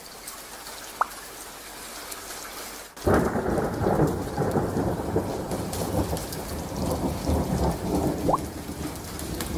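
Thunderstorm sound effect: a faint hiss of rain, then about three seconds in a sudden heavy rumble of thunder with rain that rolls on.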